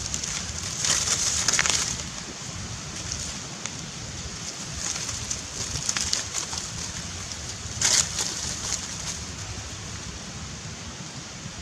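Dry leaves and grass rustling and scuffing as young macaques wrestle on the ground, louder about a second in and again about eight seconds in, over a steady low outdoor rumble.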